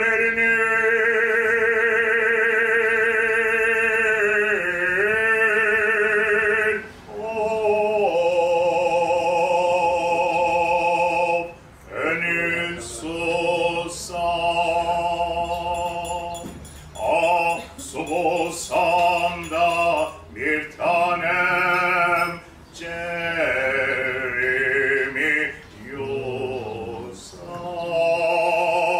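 A man singing long held notes with wide vibrato. The first note is held about seven seconds, then shorter phrases follow with brief pauses between them.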